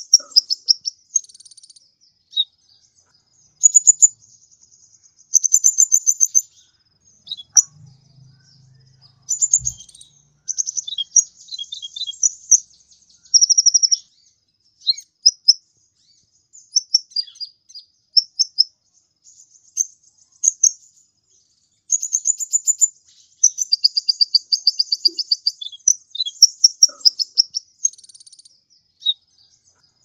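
Sunbird of the kind Indonesian bird keepers call 'kolibri ninja' singing: quick bursts of high, thin, rapid twittering notes, each burst a second or two long with short pauses between, one longer run near the end.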